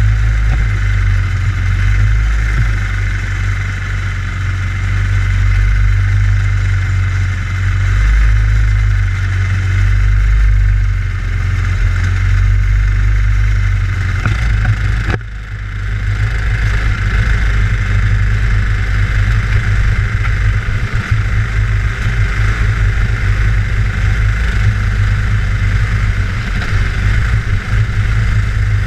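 Racing kart engine heard from onboard the kart, running continuously alongside other karts. About halfway through it drops off sharply for a moment, then picks up again with a rougher, more uneven note.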